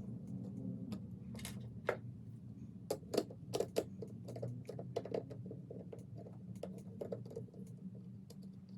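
Light, irregular clicks and taps of hands handling the parts of a beetleweight combat robot as its battery is pulled out, over a low steady hum.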